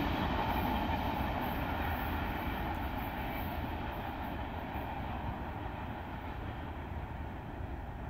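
Freight train cars rolling away on the rails, a steady rumble that fades gradually as the train moves off into the distance.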